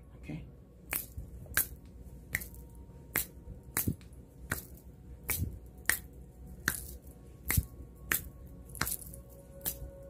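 Fingers snapping over and over, a sharp snap roughly every three-quarters of a second, over faint steady background music.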